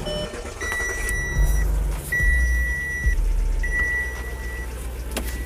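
2004 Audi A8's engine running just after being restarted with a new belt pulley fitted. Three long electronic beeps of about a second each sound over it.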